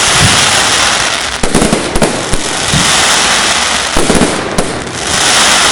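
Fireworks going off continuously: a dense crackling hiss with many sharp bangs and pops throughout.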